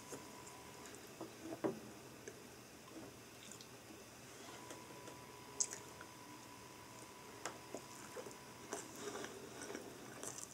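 Quiet chewing and eating sounds, with scattered small clicks and taps of chopsticks. A faint steady high tone hums for a few seconds in the middle.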